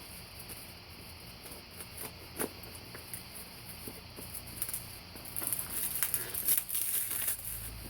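Small taps, clicks and scratches of cardboard and packaging being handled, turning into busier rustling about two-thirds of the way in.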